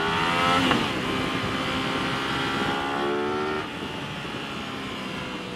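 Aprilia RS 660's parallel-twin engine accelerating under throttle, its note climbing in pitch. It shifts up about three-quarters of a second in and pulls again, then the throttle is rolled off about three and a half seconds in and the engine note drops, quieter.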